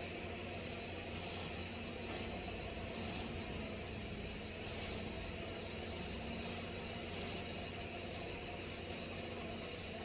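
TIG welding arc on stainless steel: a steady hiss over a low hum, with short brighter surges of hiss every second or two.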